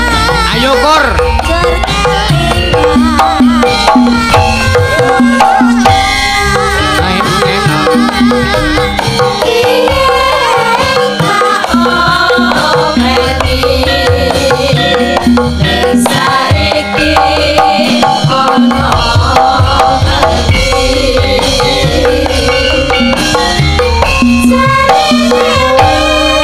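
Javanese gamelan music with sinden singing: female voices carry a wavering, ornamented melody through microphones over a kendang hand drum keeping a steady beat.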